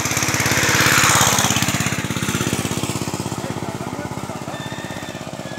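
Motorcycle engine running steadily with an even, rapid pulse. A loud rushing hiss swells and fades over the first two seconds.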